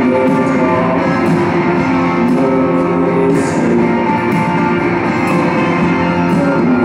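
Live rock band playing a song at loud, steady volume.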